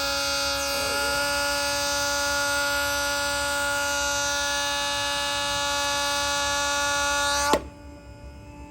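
Homemade 12-volt bicycle siren sounding a steady, harsh electronic tone through its tiny speaker. About seven and a half seconds in there is a click and it drops sharply to a much quieter tone, as its output is turned down.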